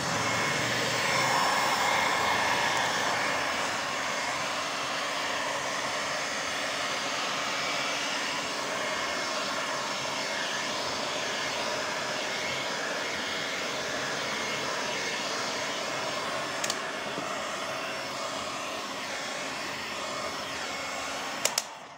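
Stanley hot air gun blowing steadily, heating shrink film so it tightens around a pack of juice bottles. Its fan and air noise cuts off near the end just after a couple of sharp clicks.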